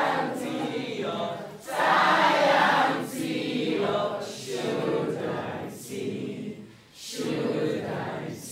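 A classroom of schoolchildren singing together as a group, in short phrases with brief pauses between them.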